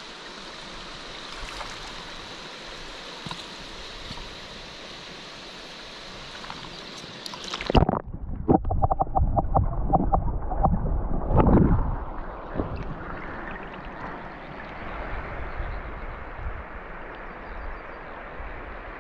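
Steady rush of river current over a riffle. About eight seconds in, the sound turns suddenly muffled as the microphone goes under water, with loud splashing and gurgling for a few seconds. The water sound then slowly clears again, still somewhat dulled.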